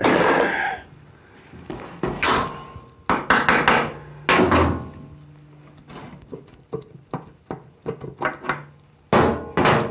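Knocks and taps of tools and metal parts against the aluminum PowerGlide transmission case as its servo cover is worked loose: several sharp knocks, then a run of small clicks and a louder clatter near the end.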